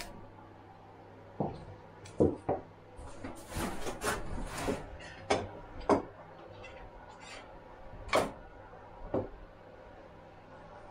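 A handful of sharp wooden knocks at irregular intervals, with about a second and a half of scraping in between: a chisel and wooden mallet being handled and set down on a workbench while wood chips are cleared out of a freshly chiselled mortise in a timber beam.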